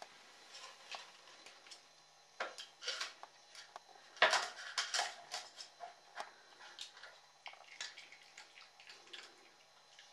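Wooden dog puzzle toy being worked by a small dog: its lids and boxes are nosed and pawed open and give a scattered run of light wooden and plastic clicks and knocks. The loudest cluster of knocks comes about four seconds in.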